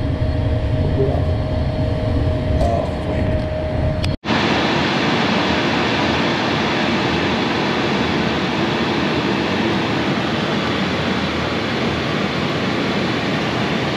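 Cockpit noise of an Embraer Phenom 100 twin-turbofan light jet in flight. A steady low rumble with a constant tone gives way, after an abrupt cut about four seconds in, to an even rushing hiss of airflow and engine noise at cruise.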